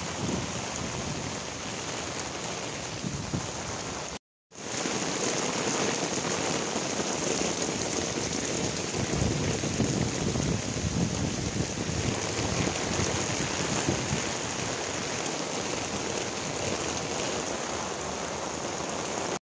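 Heavy rain pouring down onto pavement and flooded ground, a steady hiss that cuts out for a moment about four seconds in.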